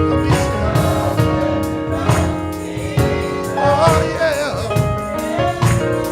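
Gospel music: held keyboard chords over regular drum hits, with a voice singing a wavering line partway through.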